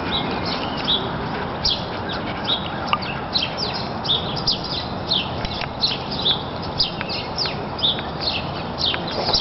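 Small songbirds chirping: short, high chirps that sweep downward, about two a second, over steady background noise.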